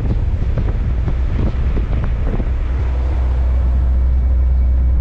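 Semi truck driving on a gravel road: a steady low rumble of engine and tyres under heavy wind noise on the microphone, with scattered small ticks and rattles throughout.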